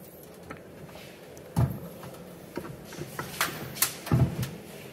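Scattered metal clicks and dull knocks from an NV241 transfer case as its aluminum halves are pulled apart and the parts inside shift and bump. It is quiet at first, with one dull knock about a second and a half in, then a cluster of clicks and knocks near the end.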